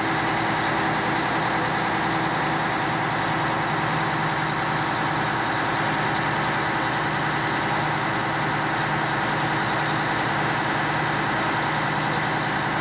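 Fire truck's diesel engine running steadily, a constant heavy drone with a steady whine through it.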